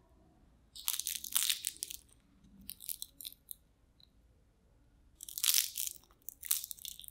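Crisp fried potato square with a cornflour crust crunching as fingers break it apart, in bursts of crackling: a longer one about a second in, shorter ones around three seconds, then two more near the end.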